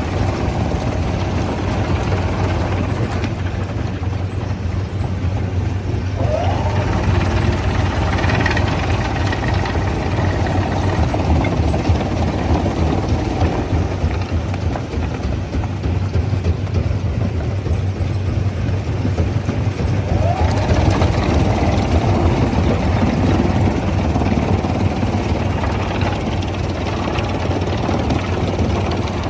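Heavy diesel machinery running steadily with a low hum, with a brief rising whine about six seconds in and again about twenty seconds in.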